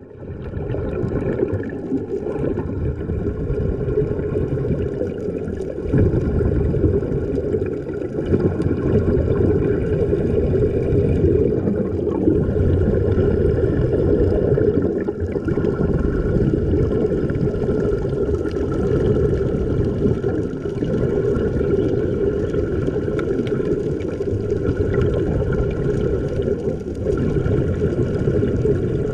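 Steady, loud low rumble of moving water with a faint engine-like hum in it, the kind of noise a boat motor and water make around a dive camera.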